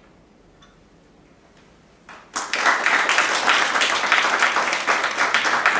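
Audience applause, starting suddenly about two seconds in after a quiet pause and continuing as many hands clapping at once.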